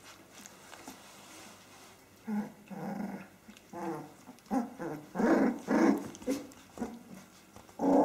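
19-day-old Australian Kelpie puppies play-growling as they wrestle, with a run of short, pitched growls starting about two seconds in and loudest near the end.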